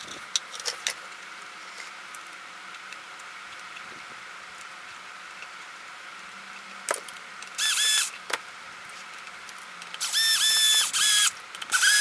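Small electric screwdriver running in three short bursts of a steady whine, about a second each, driving screws, with a few light clicks and knocks of small parts being handled before it.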